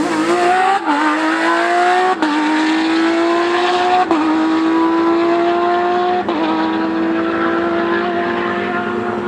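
Porsche racing car engine accelerating hard through four upshifts: the pitch climbs in each gear and drops sharply at each shift, the gears lasting longer each time.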